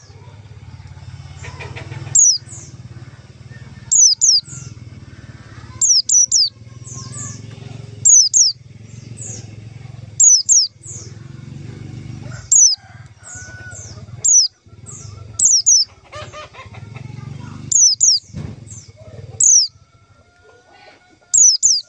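White-eye (pleci) calling: very short, high chirps that sweep downward, in quick clusters of two to four, repeated about every two seconds over a low hum. This is a pleci call of the kind played as a lure to draw out or stir other white-eyes.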